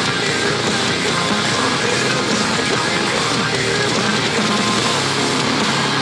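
Metalcore song playing loudly: distorted electric guitars, bass and drums with a singer's voice over them.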